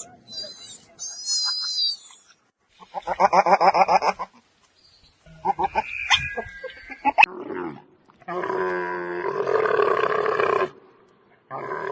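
A series of different animal calls edited one after another, each lasting a second or two with short gaps between them; the last two are longer, steady calls.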